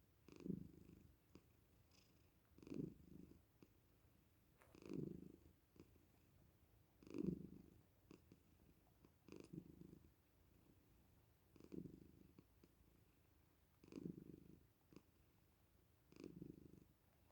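Domestic cat purring softly, the purr swelling with each breath about every two seconds.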